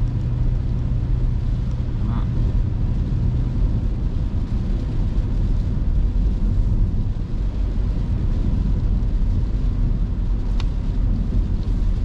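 Steady in-cabin drone of a Honda hatchback driving on a wet road in heavy rain: low engine and tyre rumble with a hiss of spray and rain.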